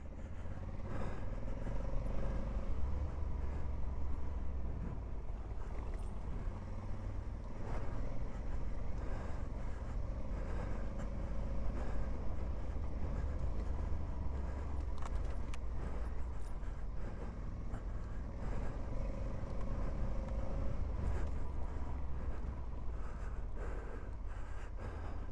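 Honda Africa Twin's parallel-twin engine running at a steady pace while the bike is ridden along a rough dirt trail. Scattered clicks and knocks come from the bike over the uneven ground.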